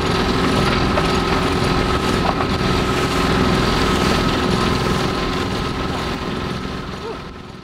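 A small sailboat's auxiliary engine running steadily while motoring along, with some wind on the microphone; the sound fades out near the end.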